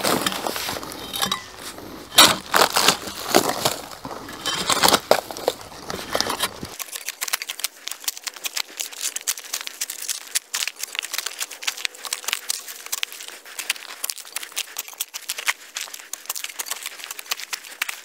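A barking spud scraping and prying loose bark off a dead pine log, the bark crunching, crackling and tearing away in pieces. About seven seconds in, the sound turns thinner, a run of small quick crackles.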